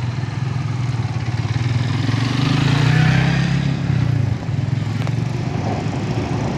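Engines of heavy traffic on a steep dirt climb: a large truck's diesel engine working uphill, with motorcycle engines passing close by. The engine noise swells to a peak about three seconds in and drops off sharply a second later.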